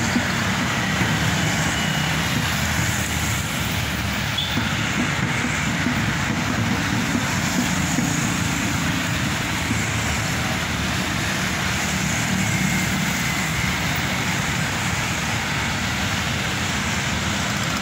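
Steady road traffic noise, a continuous rumble and hiss of passing vehicles.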